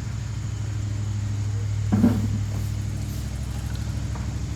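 An engine running steadily at a low, even pitch, with a brief louder noise about halfway through.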